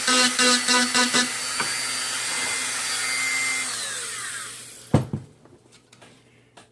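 Small electric power tool motor running with a pulsing whine about three times a second, then steady, then switched off and winding down with a falling pitch; a sharp knock follows as it is set down.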